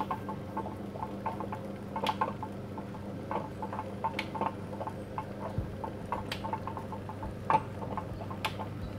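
Potter's wheel spinning with a steady low hum while wet clay is shaped by hand and a rib into a small cup, giving soft wet clicking and squelching. A few sharper clicks come roughly every two seconds.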